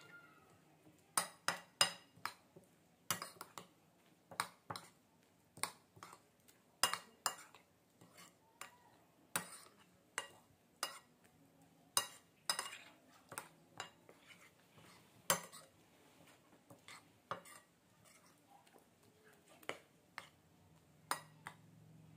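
Metal spoon clinking against a ceramic bowl while stirring a wet mixture of grated potato and beaten egg: irregular sharp clinks, about one or two a second.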